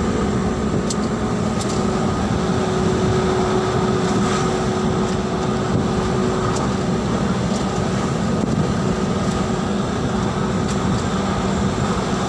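Steady engine and road noise heard from inside a moving vehicle driving along a paved road, with a steady hum that fades out about halfway through.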